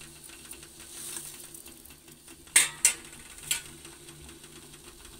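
Water heating in a steel pot of torn roti pieces, just starting to bubble lightly, over a faint steady hum. About two and a half seconds in come two sharp clicks a quarter second apart, and a softer click follows a second later.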